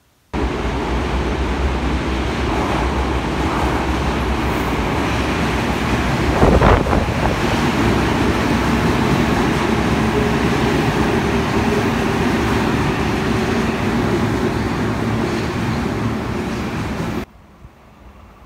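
Electric commuter train moving along a station platform: a steady rumble of wheels on rail with a faint motor hum, and one brief louder clank about six and a half seconds in. It cuts off suddenly near the end.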